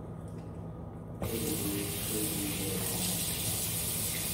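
Kitchen tap turned on about a second in, water then running steadily into the sink.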